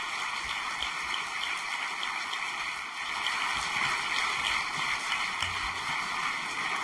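Audience applauding: a steady clatter of many hands clapping that swells a little about three seconds in.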